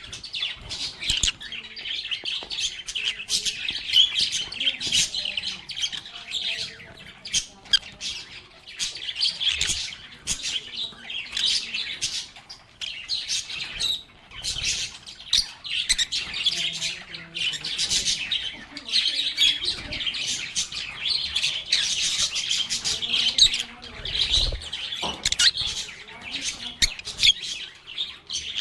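A group of lovebirds chirping and chattering nonstop in rapid, high-pitched calls.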